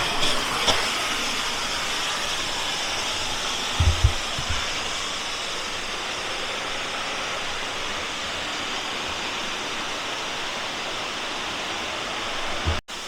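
Rushing creek water: a steady, even rush, with a couple of low thumps about four seconds in.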